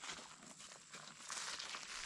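Footsteps crunching along a trail, a dense run of short crackly steps that grows louder about a second in.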